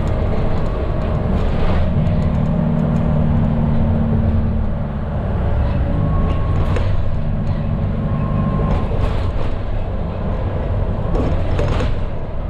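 Medium bus engine droning at cruising speed with road and tyre noise, heard from inside the driver's cabin as the bus eases off from about 67 to 52 km/h. A few short rattles break through now and then.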